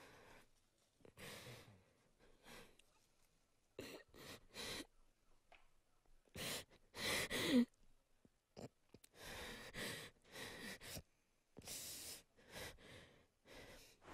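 A woman weeping quietly: shaky, breathy sobs and sighs in short separate bursts, with a brief whimper that falls in pitch about halfway through.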